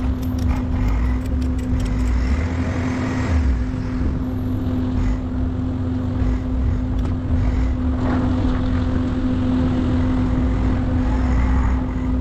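Vehicle engine running steadily, with a constant low drone and rumble and a few light clicks in the first couple of seconds.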